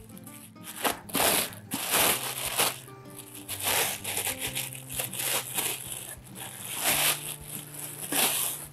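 Packaging crinkling and rustling in repeated bursts as a stainless steel pot lid is unwrapped, over soft background music with held notes.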